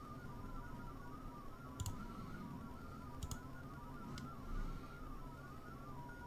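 Olivia 16/500 digital-mode signal being sent: a faint, rapid warble of stepping tones that stops near the end. A few sharp clicks sound over it.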